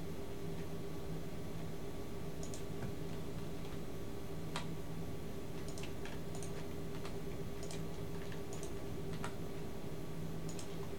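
Faint, scattered clicks of a computer keyboard and mouse, about a dozen in all and irregularly spaced, over a low steady hum.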